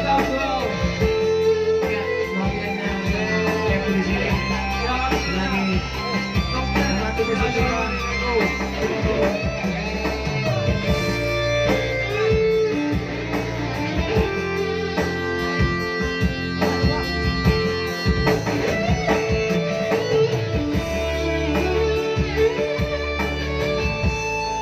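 Instrumental break of a Batak pop song: a plucked electric-guitar melody over a steady band backing.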